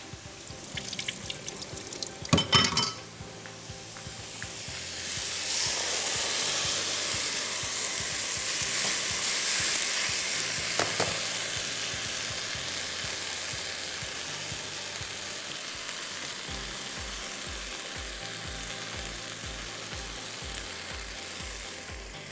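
Rice, tomatoes and spices frying in hot ghee in a wok, sizzling steadily as they are stirred with a silicone spatula; the sizzle swells about five seconds in and slowly eases. A sharp clatter of utensils comes about two seconds in, with a single knock later on.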